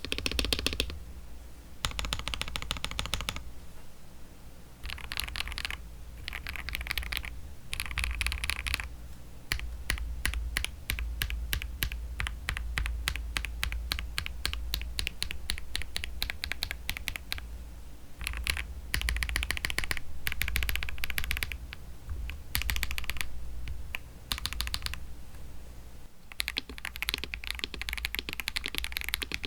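Akko CS mechanical keyboard switches typed on in a KBD67 Lite keyboard: rapid runs of keystrokes in bursts with short pauses, one long fast run in the middle.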